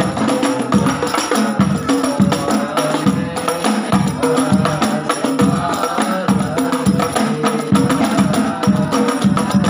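Rebana frame drums playing a steady rhythm of deep strokes, two to three a second, with a melody line over them.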